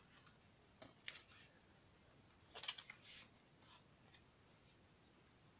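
Faint rustling of paper being handled, a few short soft rustles and light taps scattered through quiet room tone.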